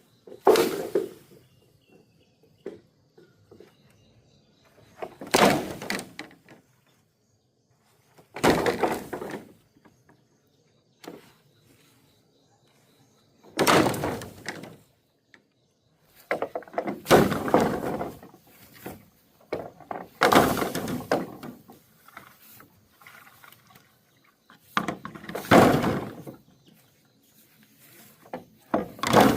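Bamboo being worked by hand: loud wooden knocks and cracks, a burst about a second long every few seconds.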